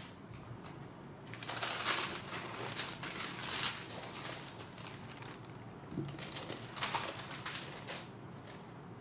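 A large sheet of paper rustling and crinkling as it is spread out and smoothed by hand on a table, in two spells of handling.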